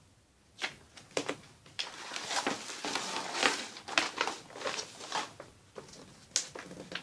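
A large folded paper poster being handled, unfolded and smoothed flat by hand, crinkling and rustling, starting about half a second in.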